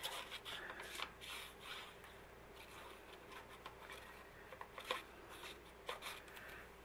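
Faint rustling of paper and card being handled, with a few light clicks and taps scattered through.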